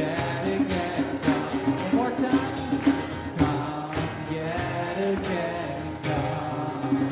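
Live acoustic music: hand-drum percussion keeping a steady beat under pitched instruments and singing voices.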